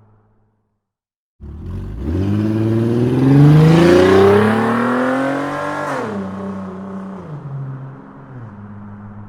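Sports car engine revving. It comes in abruptly about a second and a half in, climbs steadily in pitch for about four seconds, then drops sharply and settles back to a low, steady idle.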